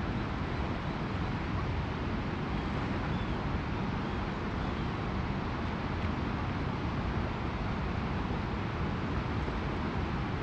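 Steady rush of a fast-flowing river, with a low wind rumble on the microphone.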